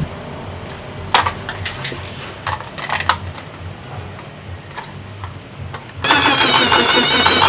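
A few light clicks and knocks, one at a time and a second or so apart, over a low hum; music starts abruptly about six seconds in.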